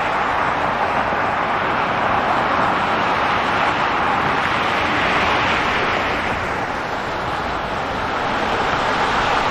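Steady city traffic noise: a continuous rush of passing vehicles that swells slightly about halfway through and eases briefly before building again.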